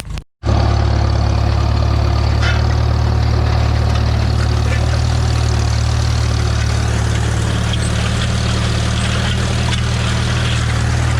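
Farmall M tractor's four-cylinder engine running steadily. The sound cuts out briefly right at the start.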